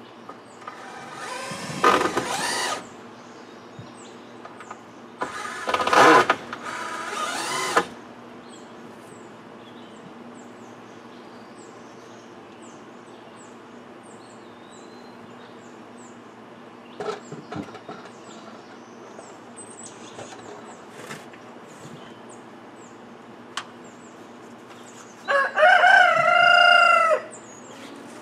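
A rooster crowing three times: two crows in the first eight seconds and a third near the end. Small high bird chirps and a few light knocks come in between.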